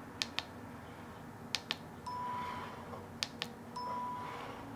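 Longarm quilting machine's handlebar button clicking in quick pairs, three times, as points are marked in ProStitcher's record mode. Two short, steady beeps each follow a pair of clicks by about half a second, over a faint low hum.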